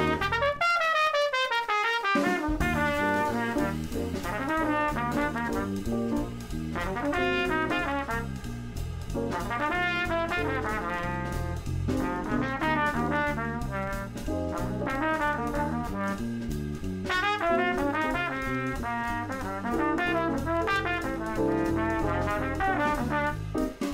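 Background music: upbeat brass-led jazz in a swing style, horn melody over a bass line.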